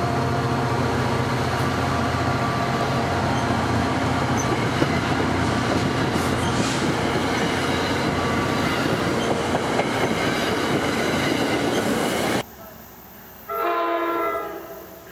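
Commuter train coaches rolling past close by: a steady rush of steel wheels on rail that cuts off abruptly about twelve seconds in. A distant train horn then sounds once, for about a second.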